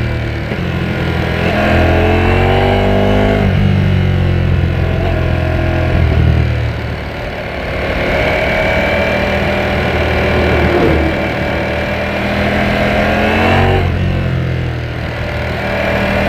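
Ducati Panigale V4S's V4 engine on the move, revs climbing, then dropping sharply at a gear change about three and a half seconds in. It then runs at fairly steady revs, with another sharp change of revs near the end.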